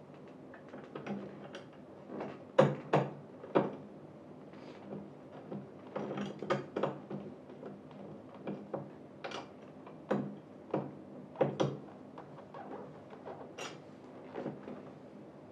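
Irregular metallic clicks and knocks of a bolt being driven into a gaming chair's part with a hand tool, in bursts with short pauses between.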